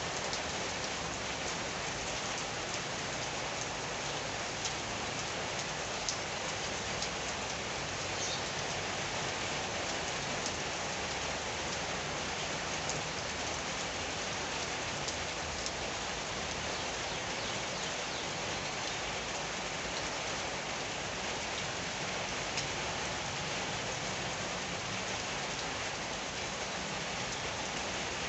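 Steady rainfall, with scattered sharp clicks of single drops striking close by.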